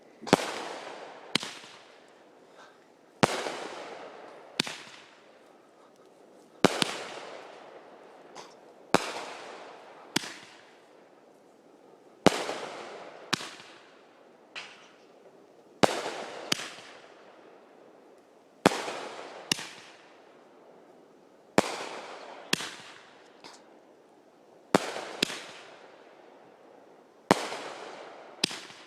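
Fireworks going off in a long run of sharp bangs, one every second or two, each dying away over about a second.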